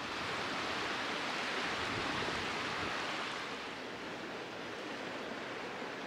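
Wind gusting through bare birch trees: a rushing hiss that swells over the first couple of seconds and then eases a little.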